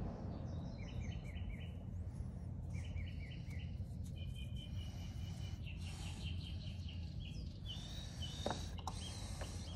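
Small birds chirping in short groups of quick falling notes, with a rapid trill in the middle, over a low steady background hum.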